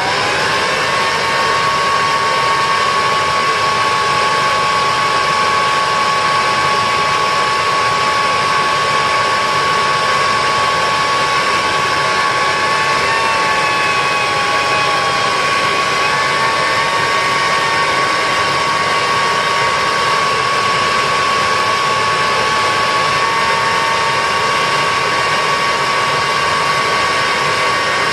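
Kirby D80 upright vacuum running with its brush roll spinning and nothing attached to the exhaust, no bag fitted. The motor winds up in pitch as it starts, then holds a loud, steady high whine over a rush of air.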